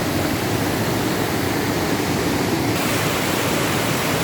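The Cascata delle Marmore waterfall: a steady rush of falling water, turning a little hissier about three seconds in.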